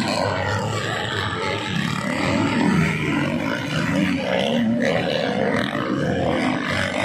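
Several motocross bikes racing through a corner, their engines revving up and down at different pitches, overlapping one another.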